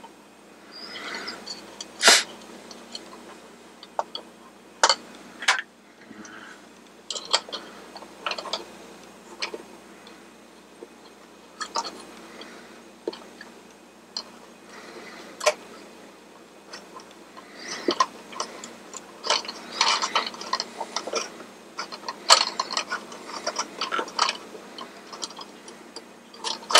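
Irregular small clicks and taps of metal parts and tweezers being handled at the hub of a plastic carousel base, coming thicker in the second half.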